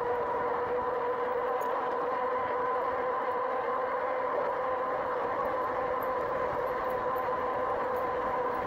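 2018 RadRover electric fat-tyre bike cruising at speed under motor assist: a steady whine from the hub motor and tyres over even road and air noise.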